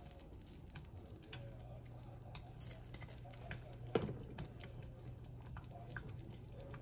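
Faint clicks and taps of plastic spice bottles being handled and set down, with one sharper knock about four seconds in. Under them, a low steady hum starts after about a second and a half.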